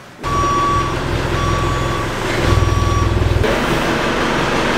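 A vehicle's reverse alarm beeps three times, about once a second, over the low rumble of its engine running. The rumble drops away after about three and a half seconds.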